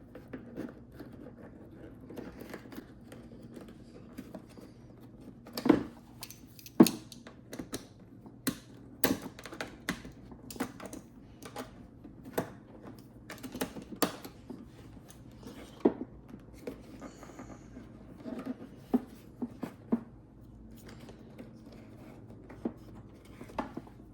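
Irregular clicks, taps and knocks of plastic headlight-housing parts and wire connectors being handled while harness wires are fed through the headlight's ballast opening; the two loudest knocks come about six and seven seconds in.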